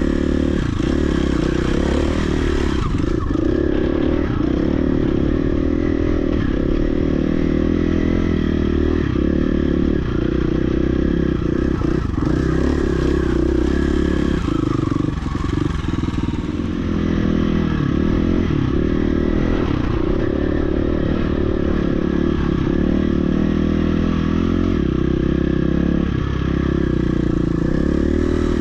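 Dirt bike engine running as it is ridden over rocky singletrack, its pitch rising and falling with the throttle.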